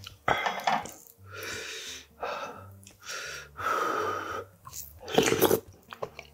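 Several short breaths blown over a wooden ladle of hot whelk-stew broth, then a loud slurp of the broth about five seconds in.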